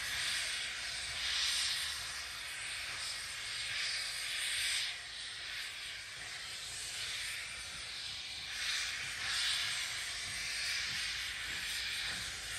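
BR Standard Class 4MT 4-6-0 steam locomotive 75014 pulling slowly away, its steam hissing out in uneven bursts about every one to two seconds.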